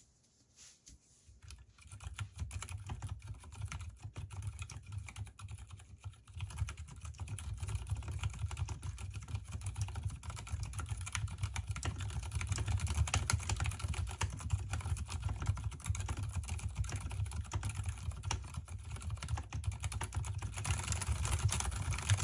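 Fast, continuous typing on an Mstone Groove T mechanical keyboard with Gateron silent brown switches, unlubricated, with lubricated stabilizers: a dense patter of muted keystrokes with a low thud under each. It starts about two seconds in, eases for a moment around six seconds, and stops abruptly at the end.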